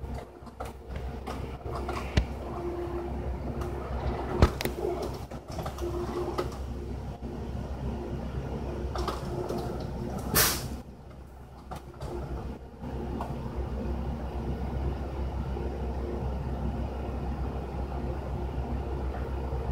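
Steady low room hum with scattered faint clicks and knocks, and a short hiss-like burst about ten seconds in.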